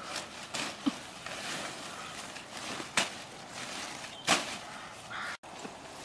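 Leafy plant stems rustling as they are gathered by hand, with a few sharp snaps of stems breaking or being cut. The two loudest snaps come about three seconds in and a little after four seconds.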